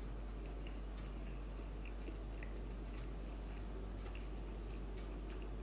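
Faint chewing of a mouthful of chickpeas and rice, with small scattered clicks, over a steady background hum.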